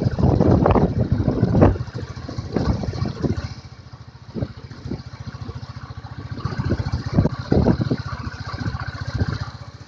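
Royal Enfield Bullet Electra's single-cylinder engine thumping at low speed, with knocks and rattles as the bike jolts over a stony dirt track. The engine goes quieter around four seconds in, then picks up again.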